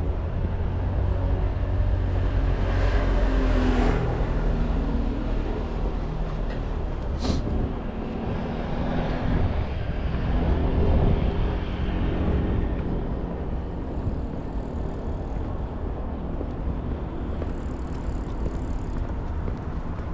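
City street traffic: cars passing over the low rumble of traffic, the two loudest about three seconds in and about eleven seconds in. A single sharp click about seven seconds in.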